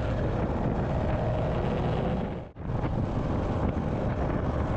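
Wind noise on the microphone over the running engine of a Royal Enfield Hunter 350, a 349 cc single-cylinder motorcycle, and road noise while riding on a highway. The sound drops out for an instant about halfway through.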